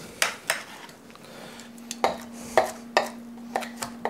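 Chef's knife chopping cooked chicken on a wooden cutting board: a string of irregular sharp knocks as the blade strikes the board, with a faint steady hum underneath.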